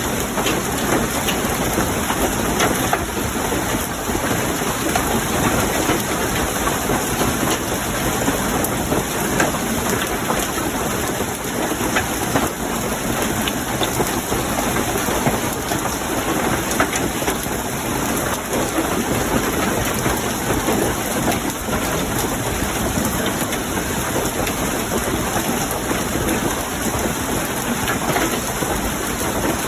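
Hailstorm: hailstones falling hard and steadily, a dense unbroken patter of many small hits.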